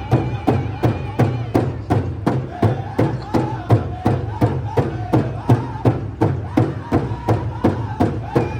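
Powwow drum and singers: a large drum struck in a steady beat, about three strikes a second, under high-pitched group singing.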